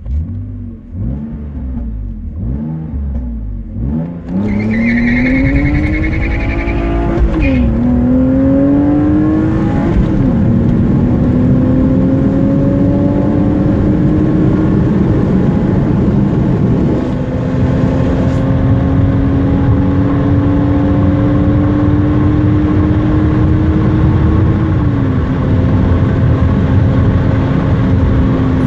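BMW M52TU 2.5-litre straight-six with a custom header, X-pipe and 330i exhaust, heard from inside the car. It is revved a few times, then pulls at full throttle with its pitch rising through each gear and dropping at four upshifts of the Getrag five-speed gearbox.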